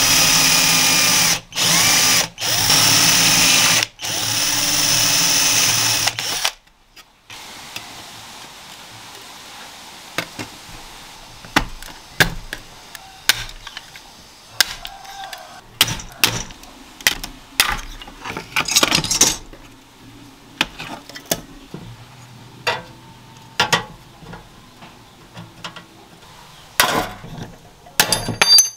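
A handheld electric drill running in four bursts over the first six seconds, its pitch shifting a little within each burst. It is followed by a long string of light clicks and knocks of small metal parts being handled.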